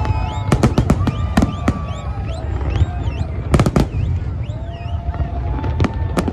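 Fireworks display: a string of sharp bangs over a steady low rumble, with a tight cluster of bangs about three and a half seconds in. Whistling tones swoop up and down between the bangs.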